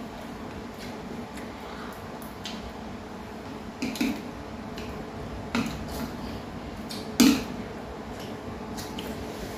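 Spoons and chopsticks clinking against ceramic plates and bowls as people eat. There are a few sharp clinks, the loudest about seven seconds in.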